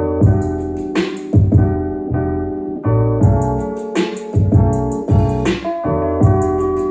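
Music with piano or electric-piano chords over a steady beat and deep bass, played through Logitech G LIGHTSYNC PC gaming speakers as a sound test.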